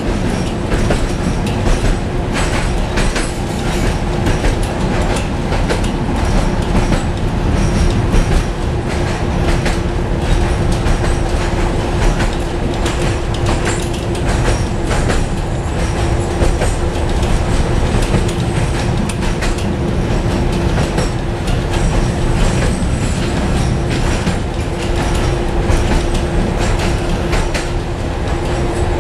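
Tatra T4D tram with B4D trailer running along the track, heard from inside the car: a steady rumble of wheels on rail with a constant hum and scattered clicks and knocks.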